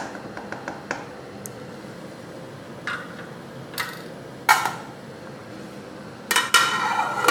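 Pots and kitchen utensils knocking and clinking in a few separate knocks, then a longer metallic clatter with ringing near the end.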